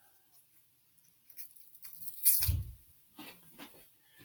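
Handling noise from cables and equipment being moved about: light clicks and rustles, with one dull thump a little over two seconds in.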